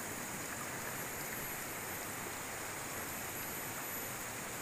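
Shallow stream running low over rocks, a steady even rush of water.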